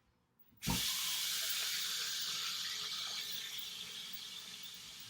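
A steady rushing hiss that starts suddenly under a second in, eases off a little, and cuts off near the end.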